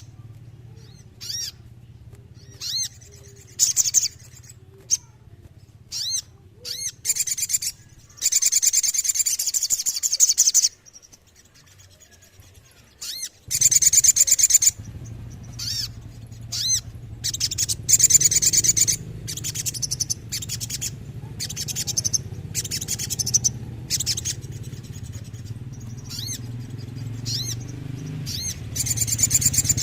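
Little spiderhunter (sogon) singing: short, sharp high call notes repeated at irregular intervals, broken by several rapid rolling trills lasting one to two seconds, over a steady low hum.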